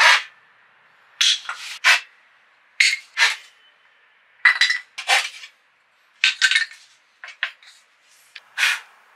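Hand saw cutting through a 12 mm Douglas-fir laminated panel: about a dozen short rasping strokes in irregular groups of one to three, with brief pauses between.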